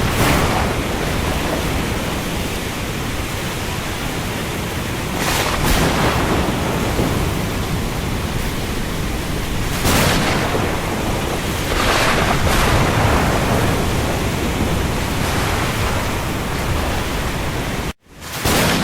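Steady rain falling on the open sea, with waves surging and washing through every few seconds. The sound cuts out abruptly for a split second near the end.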